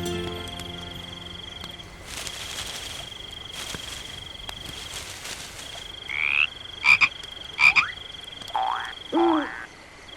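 Cartoon nature sound effects of frogs croaking in raspy patches over a steady high-pitched trill. A few short rising and falling calls come in the second half.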